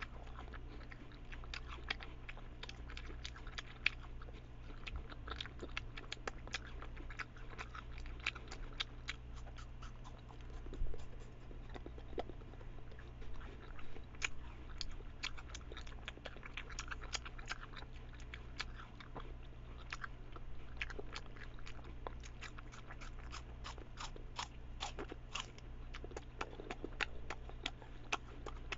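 Rabbit crunching and chewing apple slices: quick little crunches, several a second, in runs with short pauses.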